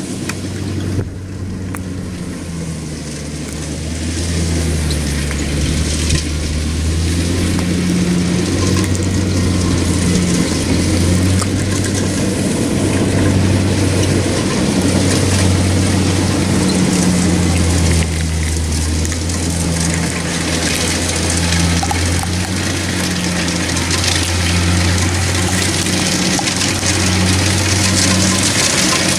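Kubota DC-70 rice combine harvester running steadily under load, its engine hum wavering slightly in pitch over the noise of the machine working. It grows louder about four seconds in.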